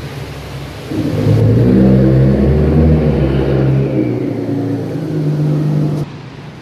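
Nissan GT-R's twin-turbo V6 running as the car drives slowly past, a loud, fairly steady engine note that cuts off suddenly near the end.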